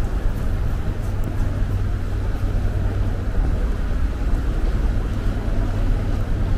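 Steady low rumble of road traffic, with buses running on the road alongside; no single sound stands out.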